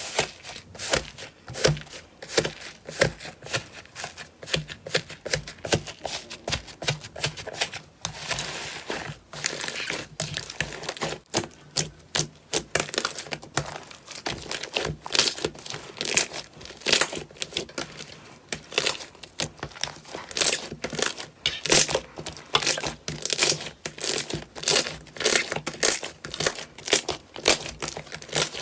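Slime being squeezed and pressed by hand: a dense, irregular run of crackles and pops.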